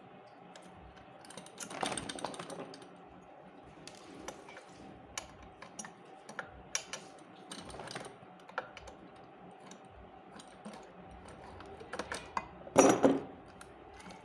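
Small clicks and knocks of hand tools and metal parts being handled while a ceiling fan is taken apart, with a louder clatter about two seconds in and the loudest one near the end.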